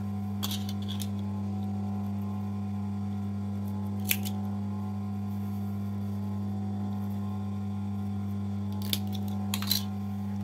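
Steady low electrical hum, with a few faint short clicks and rustles as elastic and fabric are handled.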